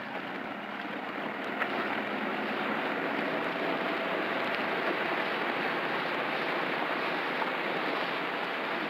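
Motorboat running at speed, a steady rush of engine and water noise that grows a little louder over the first couple of seconds and then holds.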